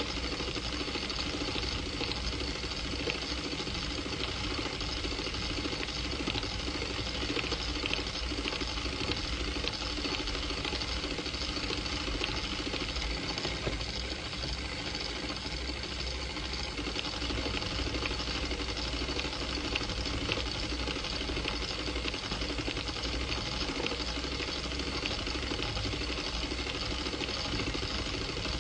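Film projector running: a steady mechanical whir and fine rapid clatter with hiss, unchanging throughout.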